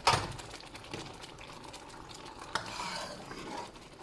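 A sharp clank as the lid comes off the pot, then a spoon stirring the simmering dal, with soft scraping against the pan and bubbling.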